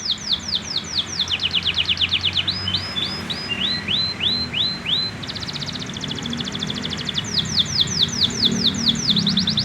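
Young canary singing while still learning its song: runs of quick, repeated down-slurred notes that switch every second or so to a new rolled phrase, with a very fast buzzy trill in the middle.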